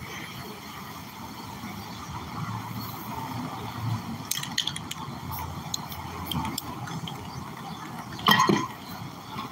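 Light clinks and knocks from spray paint cans and tools being handled on a metal work table, over steady background noise. One louder, short clatter comes about eight seconds in.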